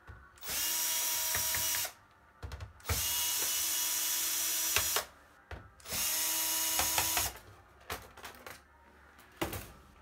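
Cordless drill-driver running in three bursts of one to two seconds each as it backs out the Phillips screws from a laptop's bottom panel. Short clicks and taps come between and after the bursts.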